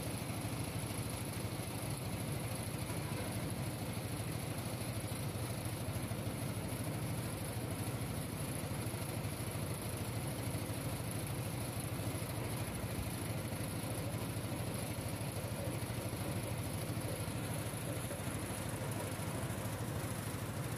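Ice-crushing machine at a fishing harbour running steadily: a constant low mechanical drone, with no separate knocks or crunches standing out.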